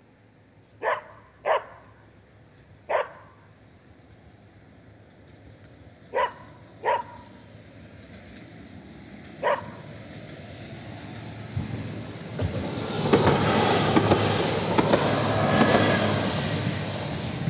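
A dog barks six times, in two groups of three, over the first ten seconds. Then a passenger multiple unit train approaches and rumbles past the level crossing, growing louder to its loudest in the last five seconds.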